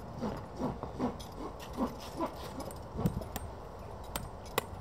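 A farrier's driving hammer gives two sharp taps on a horseshoe nail near the end, the first light blows that start a nail through the shoe into the hoof wall. Before that come a series of short falling squeaks and a dull thump.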